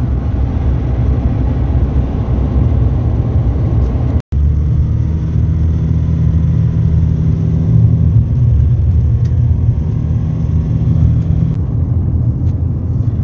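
A car driving along a country road, heard from inside the cabin: a steady low engine and road-noise rumble, which drops out for an instant about four seconds in.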